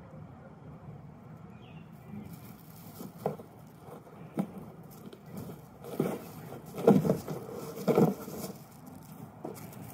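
Southern ground hornbill striking and tearing at a cardboard box with its bill: irregular knocks and cardboard rustling, the loudest two strikes about a second apart past the middle.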